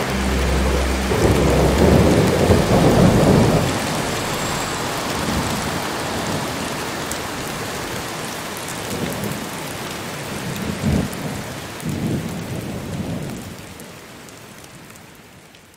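Steady rain falling on wet asphalt, with a low rumble of thunder from about one to four seconds in. The rain fades out near the end.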